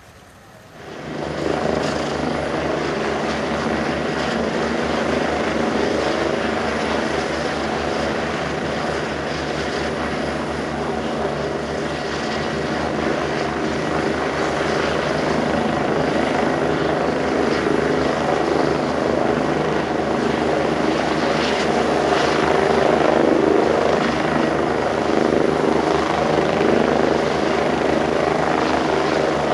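Rescue helicopter's rotor and engine running close and loud, a steady rotor chop, cutting in about a second in.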